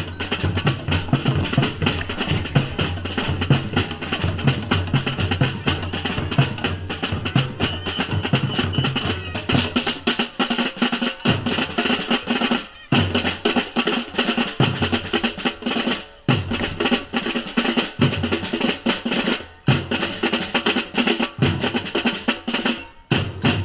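Batucada drum ensemble playing a driving samba-style groove of snares and deep bass drums, with the whole band stopping briefly several times in the second half.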